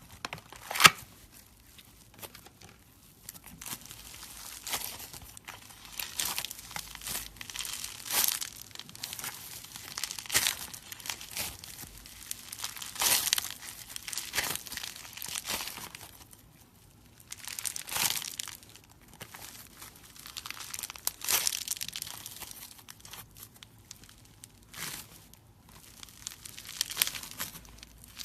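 Slime being squeezed and worked by hand, giving irregular bursts of crackling pops, with a sharp pop about a second in.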